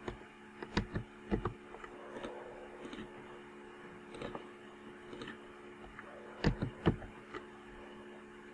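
Steady electrical mains hum with a handful of sharp computer mouse clicks, several in quick pairs, about a second in and again around six and a half seconds in.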